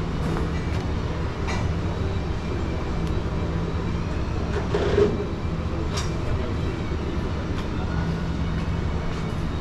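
Steady low hum and rumble of a busy gym's background noise, with a few faint knocks and clanks scattered through it and one louder thud about five seconds in.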